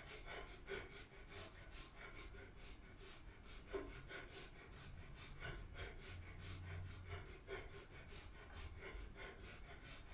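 Breath of fire, a Kundalini yoga pranayama: a quick, even rhythm of short, forceful exhalations through the nose, faint.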